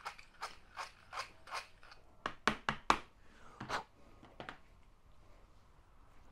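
Hand deburring tool scraping the edge of a metal axle-arm part in short, even strokes, about three a second, cleaning up the sharp edge. About two seconds in, the strokes give way to a few sharp knocks as the tool and part are set down on the bench.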